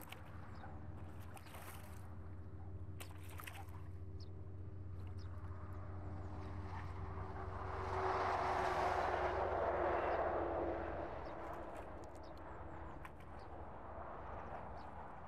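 Motorboat engine running out on the river, a steady low hum that swells to its loudest about eight to ten seconds in and then fades, its pitch dropping slightly as it passes.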